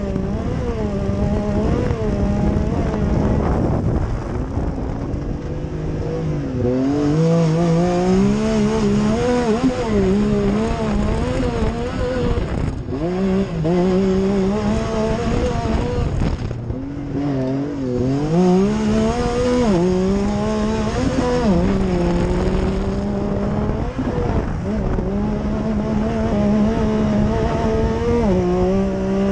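Yamaha YXZ1000R's three-cylinder engine under race load, heard from the driver's seat: the engine note climbs and falls over and over as the driver accelerates and lifts through the turns, with brief drops about 13 and 16 seconds in.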